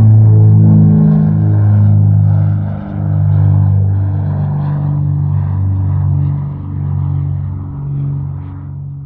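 Propeller aircraft engine droning steadily at one pitch, the level swelling and dipping, then fading away near the end as the plane recedes.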